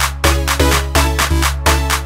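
Background electronic dance music with a steady beat and a heavy bass line.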